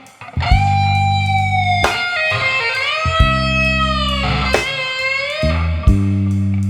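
Electric guitar playing a slow blues solo: long held notes that bend in pitch and waver with vibrato, in phrases with short breaks, over a low backing of sustained bass notes.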